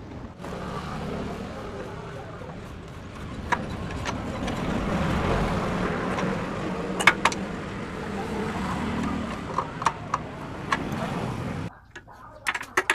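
An engine running steadily, growing louder toward the middle, then cutting off suddenly near the end, with a few sharp metallic clicks over it.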